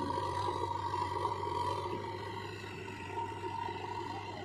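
Diesel engines of a JCB 3DX backhoe loader and a Powertrack 434 DS Plus tractor running steadily: a low drone with a constant high whine over it.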